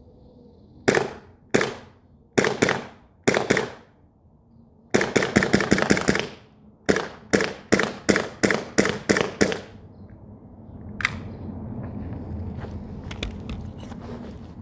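Tokyo Marui gas blowback airsoft gun firing with sharp pops. A few single shots come first, then a fast string of about a dozen around five seconds in, then about eight shots at roughly three a second, and one last shot near eleven seconds.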